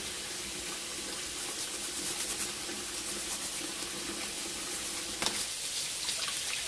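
Kitchen faucet running steadily, its stream splashing over a blue crab being rinsed by hand and into a bowl of water. There is a brief knock about five seconds in.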